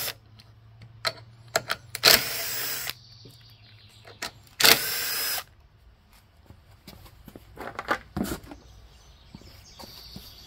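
Cordless drill/driver with a 5/16-inch nut driver spinning out the valve cover bolts on a Briggs & Stratton 550EX engine, in two short runs of under a second each. Small clicks and clinks of the loosened bolts being handled follow near the end.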